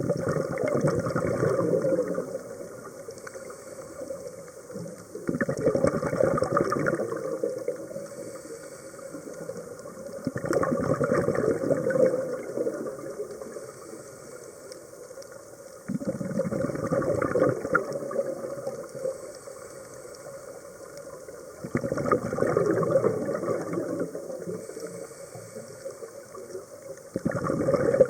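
Scuba diver breathing through a regulator underwater: six loud bursts of exhaled bubbles, about one every five and a half seconds, with quieter breathing noise between them.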